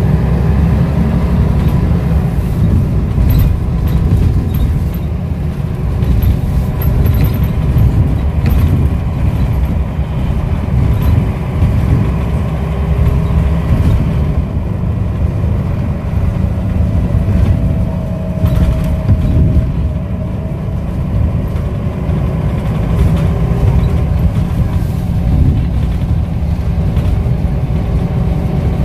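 Scania L94UB single-deck bus with ZF gearbox under way, heard from inside the saloon: a loud, steady low engine and road rumble with a faint whine that drifts in pitch and occasional light rattles.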